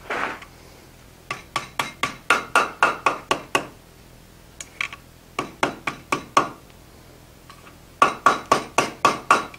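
Blacksmith's hand hammer striking hot steel on the anvil horn in three runs of quick, light blows, about four a second, each with a short metallic ring: reshaping the hook end of a forged S-hook to make it a little bigger.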